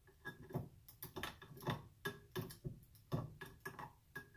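Light metallic clicks and taps, roughly three a second and uneven, some with a faint ring: hands and a hex tool working at an Allen screw on a partly dismantled aluminium vacuum pump housing.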